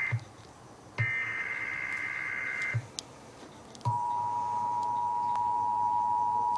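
Emergency Alert System broadcast: a screechy digital data burst of the SAME header, then about four seconds in the steady two-tone EAS attention signal begins and holds.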